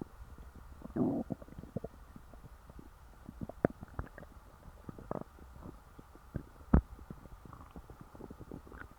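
A full, stuffed human stomach gurgling briefly about a second in, then scattered small pops and clicks of digestion, with the sharpest pop near the seventh second.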